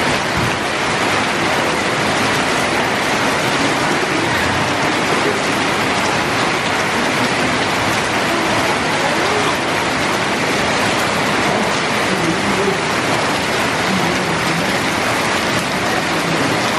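Heavy downpour: loud, steady rain coming down hard on wet concrete and roofs.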